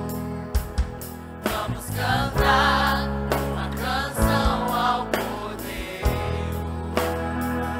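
Choir singing a gospel song with band accompaniment, including a trombone.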